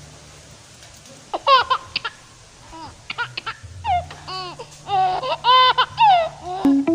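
A baby laughing and squealing in a string of short, high-pitched bursts.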